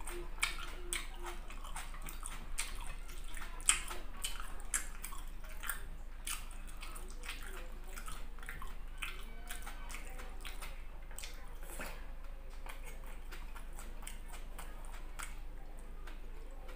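Close-up wet chewing and lip-smacking of a person eating squid and rice with his fingers: a steady run of irregular sharp wet clicks, the sharpest about four seconds in.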